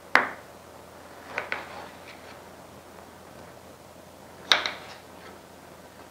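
Kitchen knife cutting through a raw potato and knocking against a marble cutting board: a few sharp clicks, the loudest at the start, a quick pair about a second and a half in and another short cluster about four and a half seconds in.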